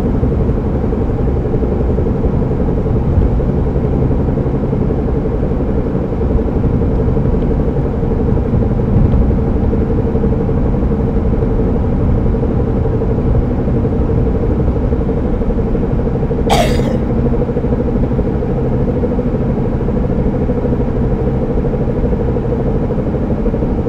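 Car being driven, with steady road rumble and a constant droning hum. The owner traces this noise to the driver-side front tire or drivetrain and cannot tell whether it is a bad tire or a drivetrain fault. A short sharp click comes about two-thirds of the way through.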